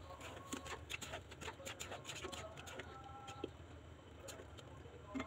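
Faint crackling and irregular light ticks from a curry bubbling in a non-stick wok, with a spatula stirring it for the first few seconds; the ticks thin out after about three and a half seconds.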